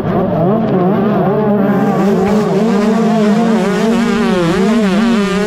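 Two-stroke 125cc motocross bike engines revving, the pitch wavering up and down continuously.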